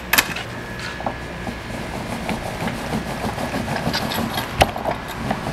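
Clicks and light metal knocks from a roll-out van awning's aluminium support legs and frame being handled while the awning is wound in, with one sharp knock near the end, over a steady low rumble.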